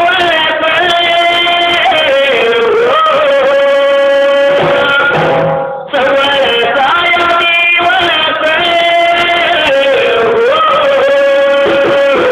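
A man singing a Marathi shahiri folk ballad with instrumental accompaniment, drawing out long held notes, with a brief break about six seconds in.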